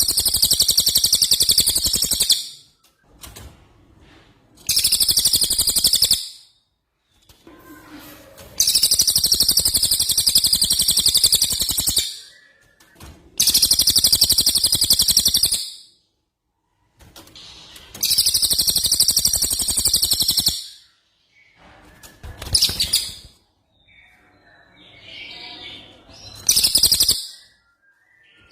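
A songbird's rapid, high-pitched rolling trills, the 'rol' phrases of a masteran training track. They come in loud bursts of two to three seconds, repeated about every four seconds with short pauses between. Near the end come a few short, sharp phrases.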